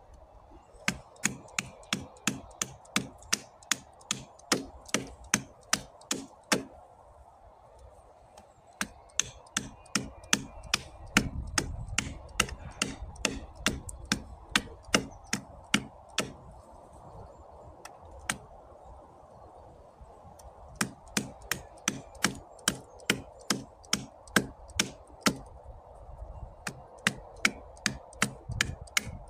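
Small multitool hatchet chopping wood in quick runs of sharp strikes, about two to three a second, pausing every few seconds, as a point is cut on a wooden stake.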